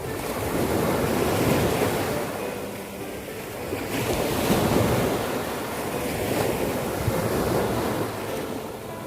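Ocean surf breaking on a beach: a steady wash of waves that swells about a second and a half in, eases off, then swells again around four and a half seconds.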